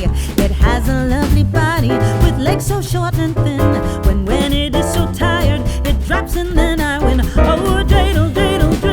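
A pop song with a singing voice over a bass line and a steady beat.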